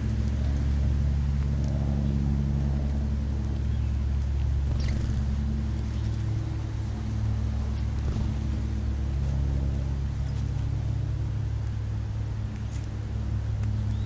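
Motor vehicle engine running steadily: a low droning hum whose pitch shifts slightly about two thirds of the way through, with a few faint high chirps and ticks over it.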